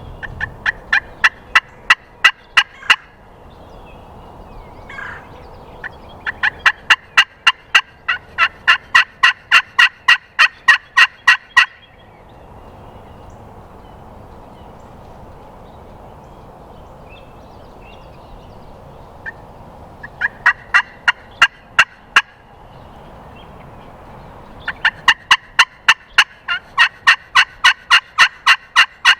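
Turkey call worked close by in four loud runs of evenly spaced yelps, about four notes a second, with pauses between, calling to draw a gobble from a tom turkey.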